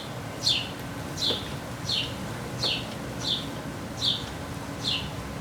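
A bird chirping over and over: short high chirps that fall in pitch, evenly spaced at about one every 0.7 seconds.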